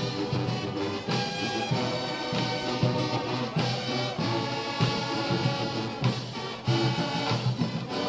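Marching band playing live: brass (trumpets, trombones and sousaphones) sounding together over regular drum strikes.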